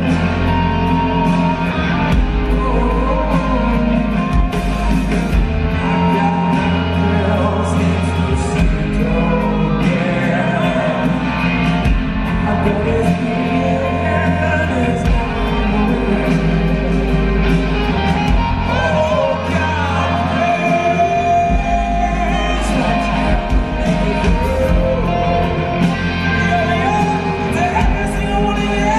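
A rock band playing live: distorted electric guitars, bass and drums with a man singing over them, heard as a loud concert recording taken from within the crowd.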